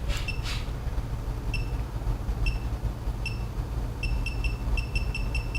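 Short, high electronic beeps from a smart touch wall switch panel as it is tapped: a few spaced single beeps, then a quick run of about seven near the end. A steady low hum runs underneath.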